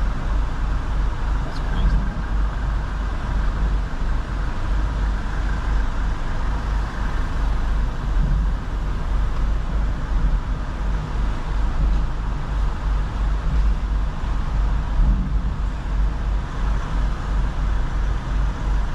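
Steady low rumble of vehicle engines idling and moving off a ferry's car deck, heard from inside a car.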